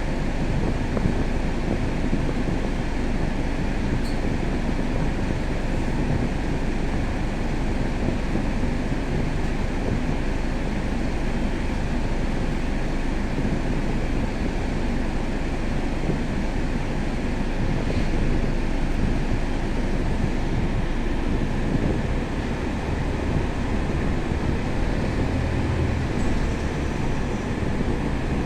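Steady engine and road rumble heard from inside a Scania K320 diesel bus under way, with an even hiss over it and a few faint clicks.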